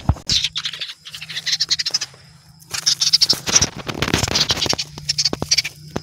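Dry leaves and plant stems crackling and rustling at close range in irregular bursts as they are handled and pushed through, over a steady high insect trill.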